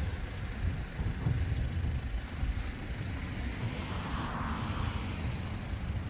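Small waves washing onto a sandy, rocky seashore, one wash swelling up about four seconds in, over a steady low rumble of wind on the microphone.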